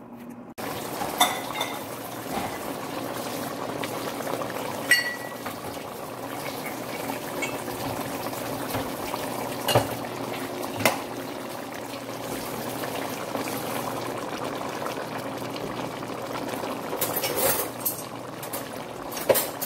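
A pot of dinuguan, dark pork-and-blood stew with vinegar, bubbling steadily at the boil as the blood cooks through. A few sharp clicks break in, one about five seconds in, two around ten seconds and several near the end.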